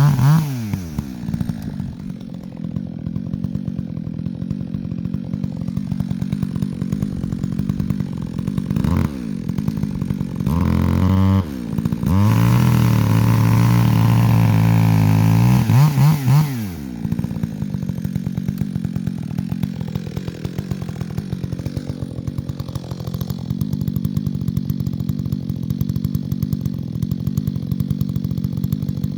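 Two-stroke chainsaw idling, revved briefly twice, then held at full throttle for about four seconds before dropping back to a steady idle.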